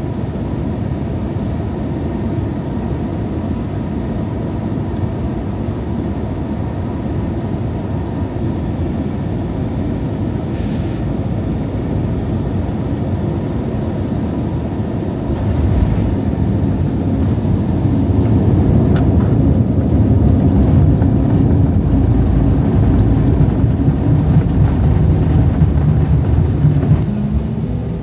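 Airliner cabin noise: a steady low rumble of jet engines and airflow heard from inside the cabin, growing louder about halfway through.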